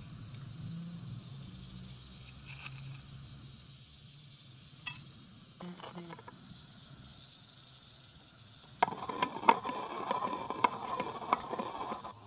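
Saffron threads being ground with a stone pestle in a stone mortar: a dense, uneven scraping and knocking that starts about nine seconds in. Before that there is a steady hiss with a few light clicks.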